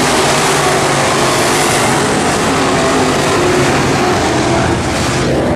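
Several race car engines running at speed on an oval track, a loud steady drone with more than one engine pitch layered together.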